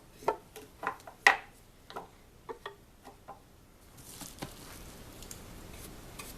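Several sharp clicks and knocks in the first few seconds from handling the mandolin and tools while sanding dust is cleared away, then a soft, steady swishing.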